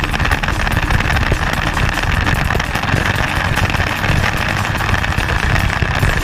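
Motorcycle riding along at a steady pace: the engine running, with wind rushing over the bike-mounted microphone.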